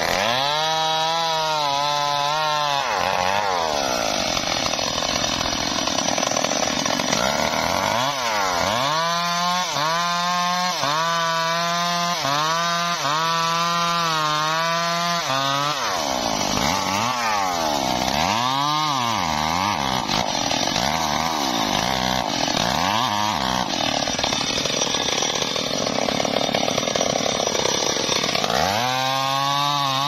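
Two-stroke chainsaw cutting through a teak log. The engine is held high at full throttle through two long stretches of cutting, then gives a run of short revs up and down before climbing again near the end.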